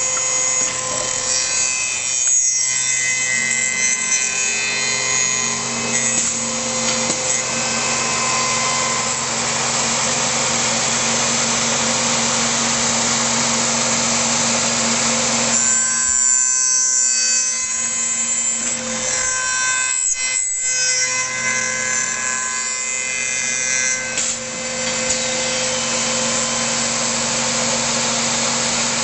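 MX3810B tenoning machine running with a steady motor hum while its cutters machine wood. The cutting noise drops away briefly about two seconds in and twice more past the middle.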